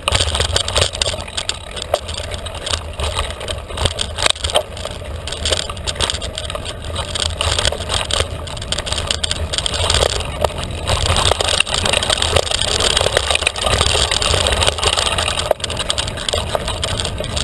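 Felt carbon 29er mountain bike ridden fast on a dirt trail: wind rumbling steadily on the microphone, over tyre noise and frequent sharp rattles and clicks from the bike.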